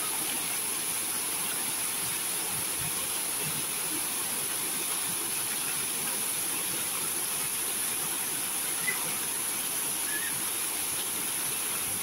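Curtain fountain: a ring of water falling from a canopy onto a tiled basin and into a shallow pool, a steady, unbroken splashing rush.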